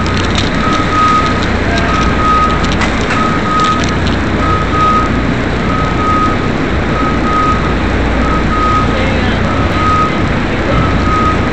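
A vehicle's back-up alarm beeping in a steady single-pitched pattern, a little faster than once a second, over the steady low hum and noise of a running engine.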